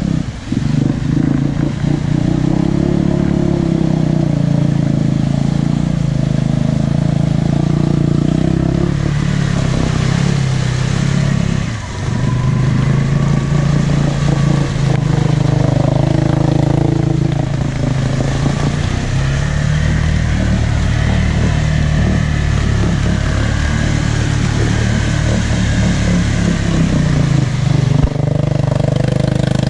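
ATV engine running hard under heavy throttle as the four-wheeler pushes through deep mud and water, its revs rising and falling. The engine sound dips briefly about a second in and again around twelve seconds in.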